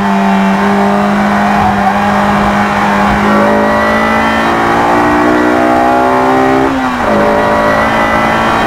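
Honda S2000's four-cylinder engine, heard from the cabin, running high in the revs in third gear with its pitch climbing slowly. About seven seconds in, a quick upshift to fourth drops the pitch sharply, and it starts rising again as the car accelerates.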